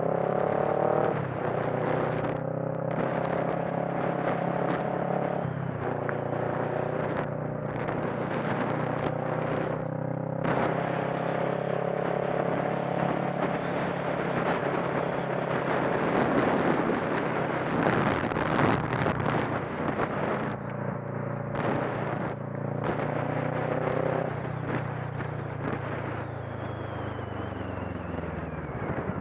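Motorcycle engine pulling away and stepping up through gears in the first few seconds, then running at a steady cruise with wind rushing over the microphone. Near the end the engine note falls as the bike slows.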